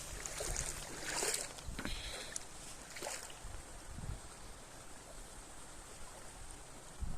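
Wind gusting on the microphone over water, with a few brief hissing bursts about one and three seconds in.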